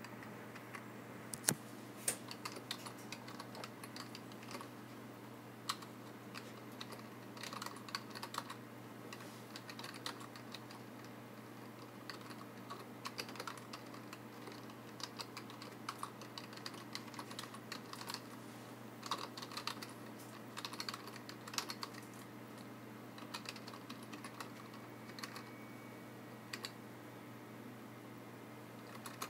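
Typing on a computer keyboard: irregular runs of key clicks with short pauses between them, over a faint steady low hum.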